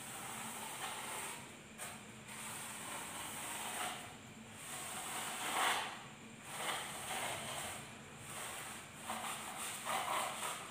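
Utility knife drawn through a Styrofoam sheet along a steel ruler: a scratchy, rasping cut in several strokes, the loudest about halfway through and again near the end.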